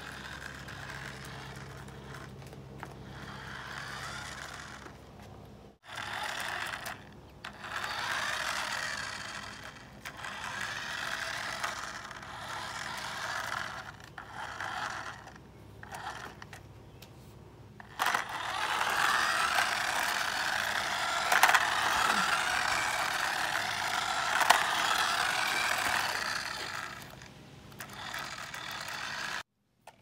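Toy remote-control semi truck's small electric motor and plastic gears whirring as it drives over concrete. The whirring comes in stretches that start and stop, and is loudest and most continuous in the second half, with a few sharp clicks.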